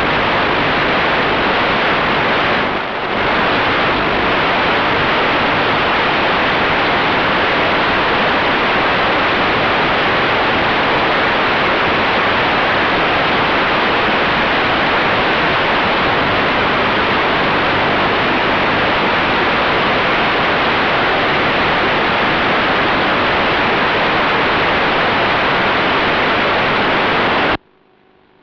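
Steady, loud hiss of static with no engine or motor tones in it, dipping briefly about three seconds in and cutting off suddenly near the end, leaving a faint hum.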